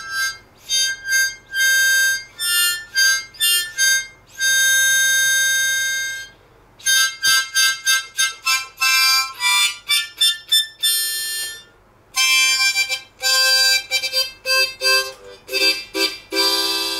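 Background music: a solo harmonica tune of short notes and chords, with one long held note about five seconds in and brief pauses near seven and twelve seconds in.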